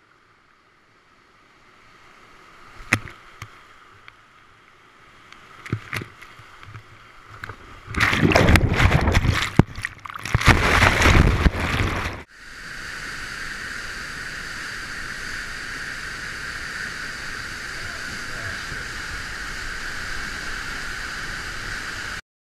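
Whitewater rushing under a kayak as it is paddled toward a waterfall lip, with a few sharp knocks of the paddle. About eight seconds in comes a loud crashing of water for some four seconds as the kayak drops over the falls and plunges. It cuts off suddenly, giving way to the steady roar of the falling water.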